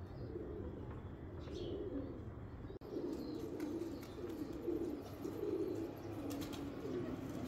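Domestic pigeons cooing continuously in a low, warbling drone, with one short higher bird chirp about one and a half seconds in.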